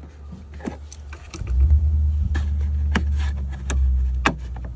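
Plastic clicks and knocks from a Ford Bronco's roll-bar speaker trim cover being worked forward off its clips. A low rumble comes in about a second and a half in and fades near the end.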